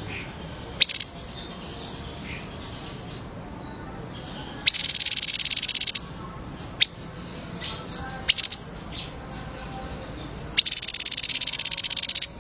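Recorded songbird calls: two loud, rapid rattling trills of about a second and a half each, near the middle and near the end, with a few sharp short chirps between them over faint, steady high chirping.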